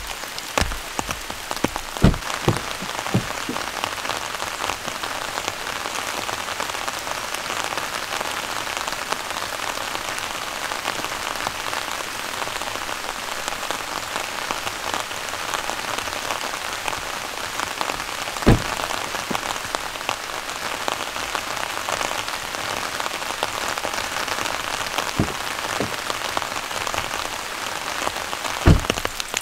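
Steady rain falling, an even hiss of drops, with a few single louder knocks standing out from it: twice near the start, once in the middle and twice near the end.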